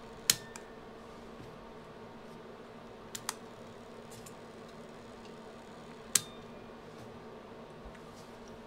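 Small motor of a Sanyo MGP-44 Walkman, its drive belt removed, running with a faint steady hum. Sharp clicks sound once near the start, twice in quick succession about three seconds in, and once about six seconds in.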